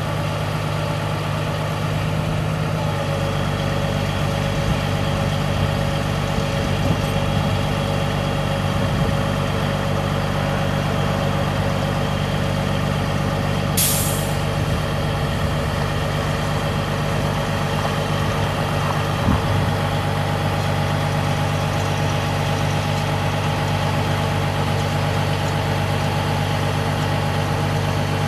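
The Caterpillar 3406B inline-six diesel of a 1988 Freightliner FLC-64 crane truck running at a steady speed while the crane is worked, its note stepping up slightly a few seconds in. About halfway through there is one short hiss of released air.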